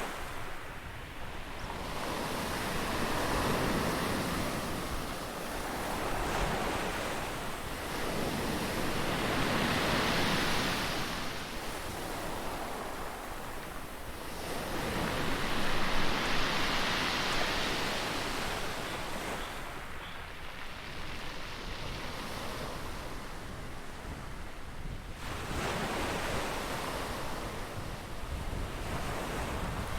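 Ocean waves breaking and washing on a shore, rising and falling in surges every several seconds, the loudest one about halfway through.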